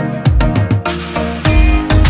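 Background music: an instrumental track with a steady beat, its bass and drums coming in a moment after the start.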